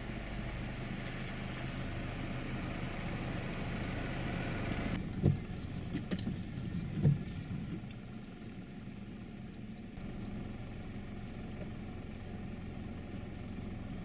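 A motor vehicle engine idling steadily, with two short heavy thumps about five and seven seconds in.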